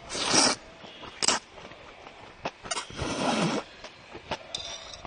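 A person slurping thick whole-wheat udon noodles in three noisy pulls: one at the start, a short one about a second in, and the longest around the middle. Light clicks come in between.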